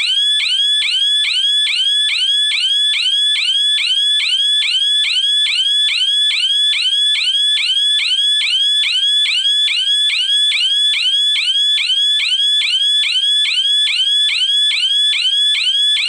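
Siren of a GSM home alarm system sounding in rapid rising whoops, about two and a half a second, after the armed system was triggered in zone two. It is nearly deafening.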